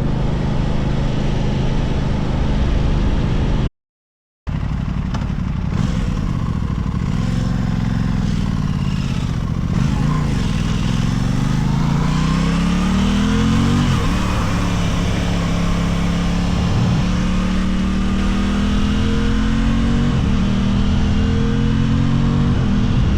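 Aprilia RS660's parallel-twin engine heard from the bike, revving up repeatedly with rising pitch and dropping between gears, then holding a steadier, slowly rising note, over wind rush. The sound cuts out completely for under a second about four seconds in.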